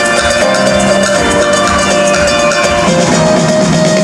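Live band music heard from the crowd in a large concert hall: acoustic guitar and drums playing.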